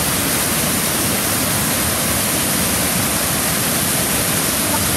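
Waterfall cascading over rocks close by: a steady, loud rush of white water.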